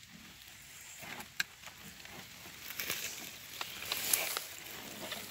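Rustling with scattered sharp clicks as a wire-mesh snake trap and its net sleeve are handled on dry leaf litter.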